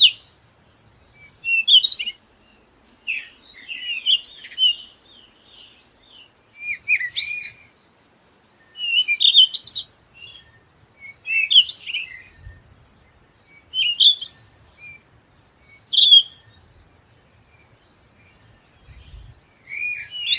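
A songbird singing short, varied, warbling phrases, each about a second long, repeated about every two seconds with brief pauses between.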